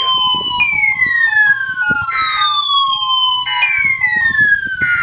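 Weather alert radio sounding its siren alarm: a falling wail that jumps back up and repeats about every three seconds, with short beeps alternating between two pitches from another alarm underneath.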